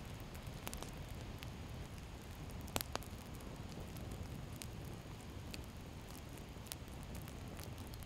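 Wood campfire burning, with scattered sharp crackles and pops over a steady low background noise; the loudest pops come as a close pair about three seconds in.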